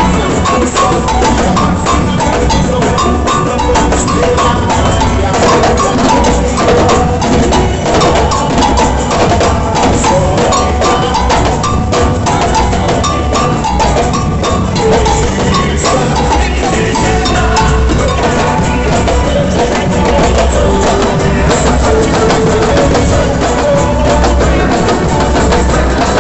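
Boi-bumbá toada played loud: heavy bass drums and dense, clattering hand percussion drive a steady beat under sustained pitched instruments.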